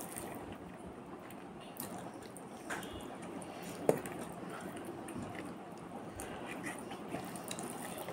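Close-up eating sounds of a person eating rice by hand: chewing and wet mouth sounds, soft squishing of rice worked between the fingers, and small ticks, with one sharp click just before four seconds in.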